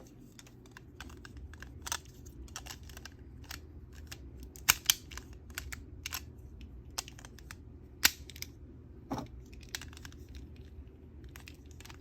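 Hard plastic toy parts and packaging being handled: irregular sharp clicks and taps, with louder snaps about five and eight seconds in.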